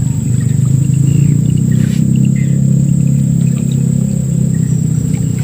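Small boat engine running steadily at low revs, a constant low drone.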